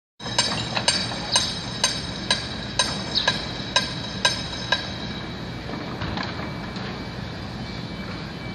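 Hammer striking metal in a steady rhythm, about two blows a second with a ringing tone, ten blows in all, stopping about five seconds in. A steady background hum runs underneath.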